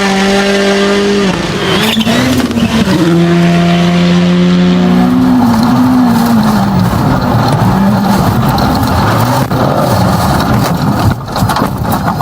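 Rally car engine at high revs, held flat out with brief drops in pitch at gear changes, then revving up and down repeatedly as the car is driven hard. A rushing noise of tyres and passing air grows toward the end.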